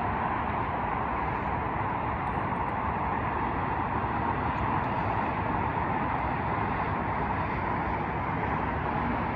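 Steady drone of freeway traffic, the combined tyre and engine noise of many cars, even and unbroken.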